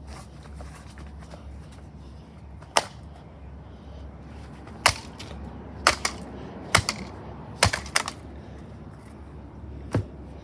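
A light-socket ceiling fan being struck: about eight sharp, separate hits at irregular intervals, two of them close together near the middle.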